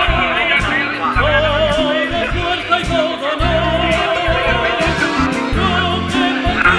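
Background music: a song with a singer's wavering melody over repeated bass notes and light percussion.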